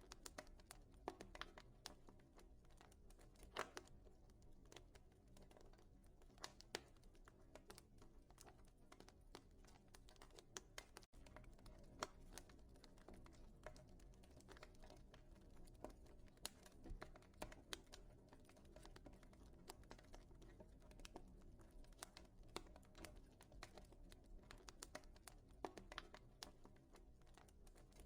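Quiet wood fire crackling in a fireplace: irregular snaps and pops over a low, steady background, cutting out for an instant about eleven seconds in.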